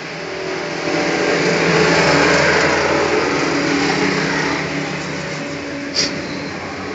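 A motor vehicle's engine running, swelling in loudness about a second in and then slowly fading. A single sharp click near the end.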